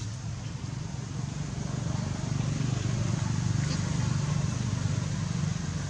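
Low engine rumble that grows louder about two seconds in and then holds steady.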